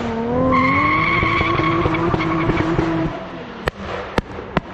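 Turbocharged JZ-GTE straight-six in a Nissan 200SX S14a held at steady revs with a high whine over it. About three seconds in the revs drop away, and three sharp exhaust pops from the anti-lag follow near the end.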